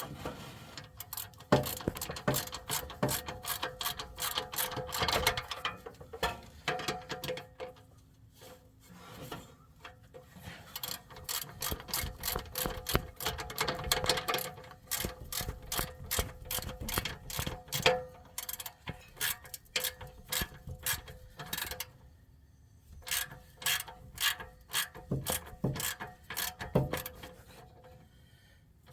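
Socket ratchet wrench clicking in quick runs of strokes with short pauses, tightening the nuts on an exhaust pipe clamp.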